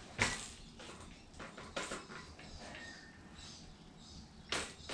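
Hand-handling noises on a mountain e-bike's cable housing and frame: a few sharp clicks and knocks, the loudest about a quarter second in, with faint rustling between.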